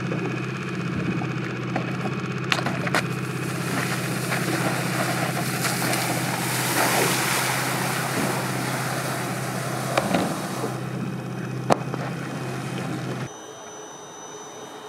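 A wakeboard cutting across the water, its spray hissing over the steady hum of a motor, with a few sharp knocks. Shortly before the end the hum and spray cut out, leaving a quieter background with a faint high whine.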